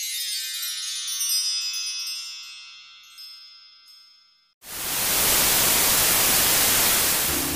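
A shimmering cluster of high chime tones from a logo sting, fading out over about four seconds. Then a loud hiss of TV static cuts in suddenly and holds steady for about three seconds.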